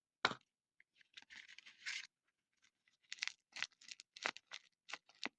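Faint handling noises: irregular scratching and rustling, with a short burst around two seconds in and a run of small ticks and scrapes from about three seconds in.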